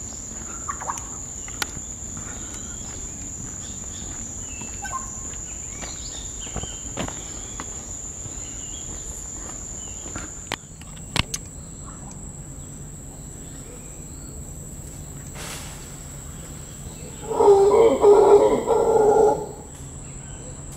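Tropical forest ambience: a steady high-pitched insect drone with scattered short bird chirps. Near the end, a loud call of about two seconds stands out over it.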